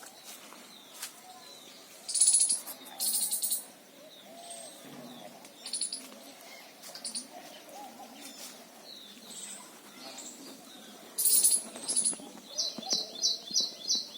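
Small birds chirping in short, sharp, high bursts, with a quick run of about half a dozen notes near the end.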